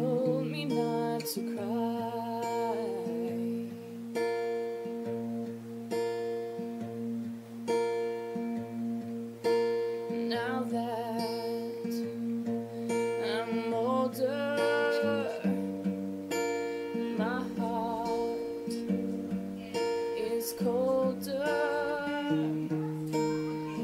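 Background music: acoustic guitar strumming about once a second, with a wavering sung melody coming in and out over it.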